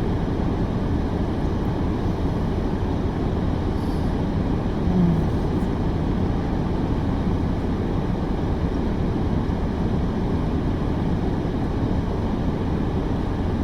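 Steady low rumble of an idling vehicle engine, with one brief low hum about five seconds in.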